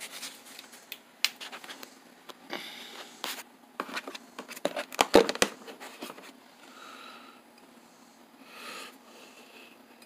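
Icon snap ring pliers and their plastic carrying case being handled: scattered clicks and clatters with some rustling, loudest in a cluster of knocks about five seconds in.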